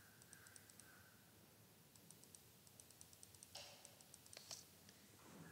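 Faint, quick runs of ticks from a computer mouse's scroll wheel, three to six at a time, with two brief louder clicks about three and a half and four and a half seconds in, over low room hiss.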